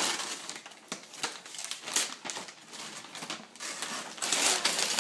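Wrapping paper and tissue paper rustling, crinkling and tearing as a present is pulled open by hand, in irregular rustles that grow louder near the end.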